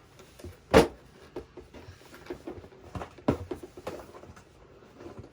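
Drone packaging being opened and handled: scattered clicks, rustles and knocks, with one sharp knock about a second in.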